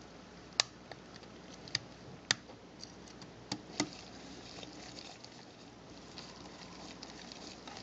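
Several sharp plastic clicks in the first few seconds as the end cover is pressed onto a Panasonic Lumix ZS10 compact camera body. After that, faint fine ticking and scraping of a #00 Phillips precision screwdriver turning a tiny screw into the camera's side.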